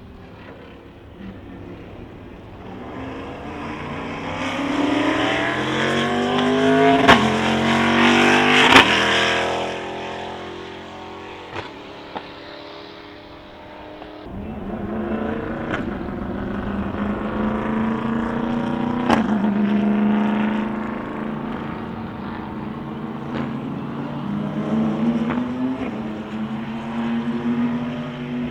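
Endurance race cars passing at speed. One car's engine note rises through the gears to a peak with two sharp cracks, about 7 and 9 seconds in, then fades. Another car's engine comes in abruptly about 14 seconds in and is loudest around 19 seconds, and a third engine note rises near the end.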